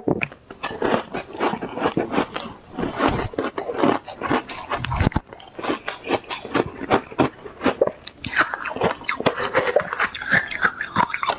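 A person biting and chewing ice close to the microphone: rapid, crisp crunches one after another, with a few short squeaky sounds late on.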